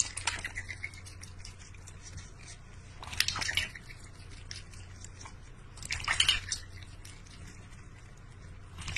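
Duck dabbling its bill in a steel water bowl, with wet splashing and slurping in short bursts a few seconds apart.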